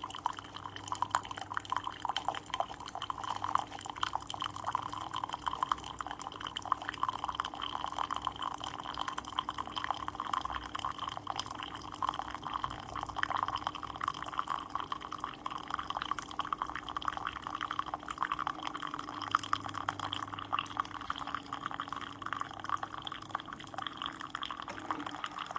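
Keurig single-serve coffee maker brewing: coffee streams and patters steadily into a cup over a steady low hum from the machine.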